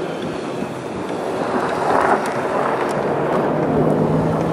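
GE C40-8 (Dash 8-40C) diesel locomotive approaching, its 16-cylinder engine running, with wind noise on the microphone. A steady low engine note comes in about three seconds in.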